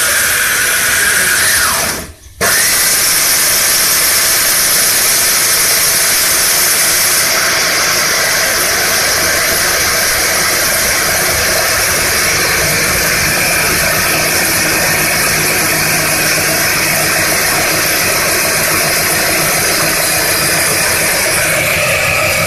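Electric food processor motor grinding rice into flour, running steadily. It cuts out briefly about two seconds in, then starts again.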